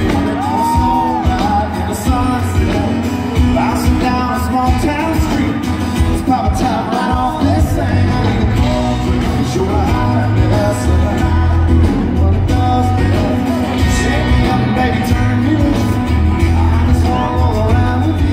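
Live country band playing at full volume: a male lead singer over electric guitars, bass and drums, heard through the crowd.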